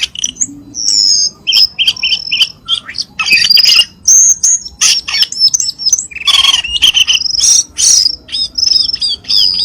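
Cucak keling singing in a fast, busy stream: high whistled notes, quick repeated chirps and a few harsh, scratchy calls, with barely a pause between phrases.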